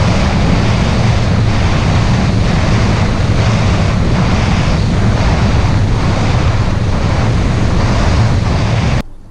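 Bass boat running at speed across open lake water: a loud, steady rush of wind buffeting the bow-mounted microphone over the boat's motor and hull noise. Faint regular slaps come about twice a second as the hull runs through the chop. The sound cuts off suddenly near the end.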